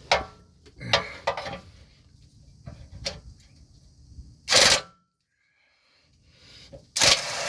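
Metal hand tools clinking and clattering as sockets and a ratchet are handled on the transmission cross member bolts: a few sharp clicks and knocks, with a loud handling noise about four and a half seconds in and another near the end.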